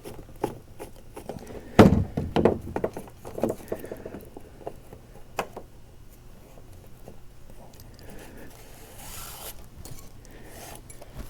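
Handling noise from working a steering line through a kayak's plastic rudder-steering fittings: scattered knocks, clicks and scrapes, with the loudest thunk about two seconds in.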